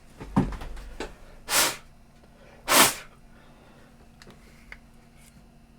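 A few light clicks, then two short, sharp puffs of air about a second apart.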